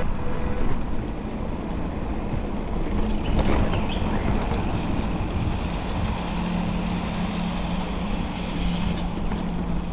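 Steady rumbling wind-on-microphone and rolling noise of a bicycle ride, with a low steady hum coming in about a third of the way through.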